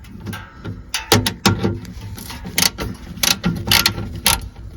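Hand ratchet wrench loosening the 10 mm bolts on a cover of a Honda Pioneer 700 side-by-side, with metal clicks and clinks. The sharp clicks come irregularly, about eight of them from about a second in onward.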